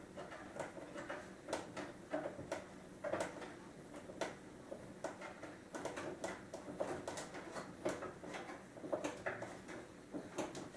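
Turnbuckles on the chair's tensioning cable being turned by hand, making light, irregular clicks and small knocks of metal and wood handling.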